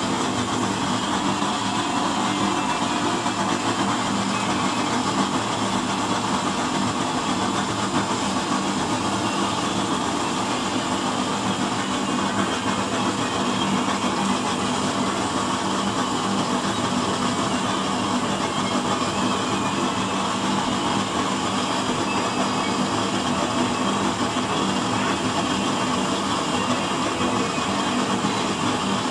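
Homemade used-oil burner stove running with a steady blue flame: an even rushing noise with a low steady hum underneath.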